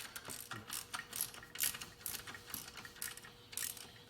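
Ratchet wrench clicking in short, irregular runs as an alternator mounting bolt is turned and snugged up, with scattered ticks of tool on metal.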